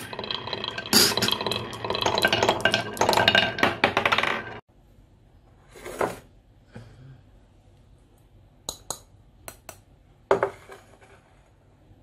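Glass marbles rolling down a carved wooden zigzag track, a dense rattle of clicks and knocks that stops abruptly about four and a half seconds in. After it come a few separate sharp clicks and one louder knock.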